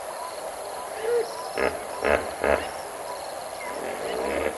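Outdoor bush soundscape with a small bird-like chirp repeating about twice a second. A soft gliding call comes about a second in, then three short, loud, harsh animal calls in quick succession about two seconds in.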